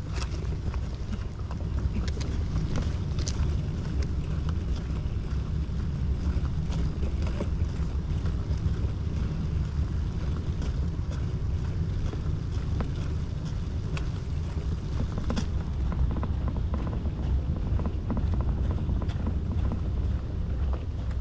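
Wind buffeting the microphone while moving along outdoors: a steady low rumble, with a few faint clicks.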